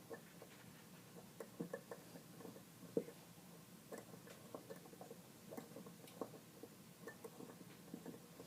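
Hand tap cutting threads into a galvanized pipe reducer: faint, irregular clicks and creaks as the tap is turned and backed off, with one sharper click about three seconds in.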